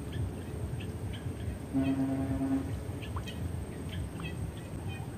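A horn sounds once, a steady note held for about a second, about two seconds in. Under it runs a steady low rumble, with short high chirps repeating.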